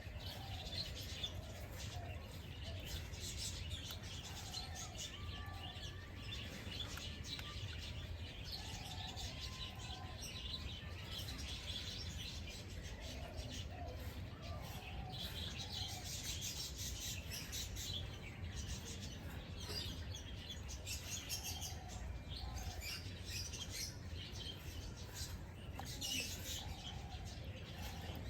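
Outdoor birdsong: several birds chirping continuously in quick high notes, with some lower calls mixed in, over a steady low rumble.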